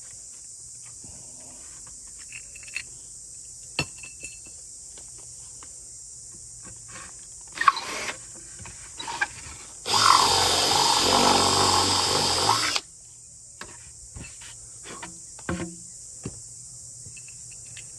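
A power drill runs steadily for about three seconds, two-thirds of the way in, with scattered small clicks and knocks of handling before and after it. A steady high chirring of crickets runs underneath.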